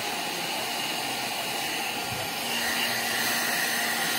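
Hair dryer blowing steadily, its motor tone a little louder from about halfway through.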